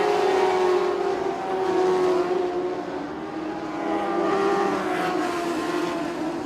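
A pack of 1200cc Lightning mini sprint cars racing at high revs, several engines heard at once. The sound dips about halfway through and swells again as the cars come around.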